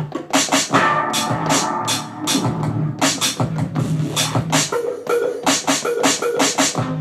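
Electronic hip-hop style beat from a Native Instruments Maschine Mikro pad controller: fast, dense drum hits over a repeating bass line.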